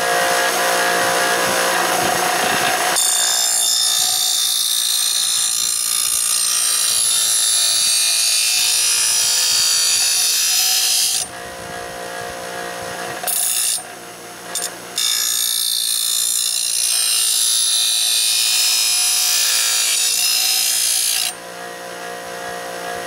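Black & Decker Firestorm bench grinder's stone wheel running steadily while a steel lawn mower blade is pressed against it to sharpen the cutting edge's bevel. It gives a harsh grinding hiss in two long passes, from about three seconds in to eleven and again from about fifteen to twenty-one, with two brief touches in between.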